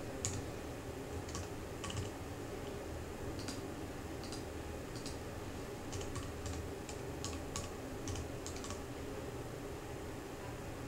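Typing on a computer keyboard: scattered keystrokes, then a quick run of keys about six to nine seconds in, over a low steady hum.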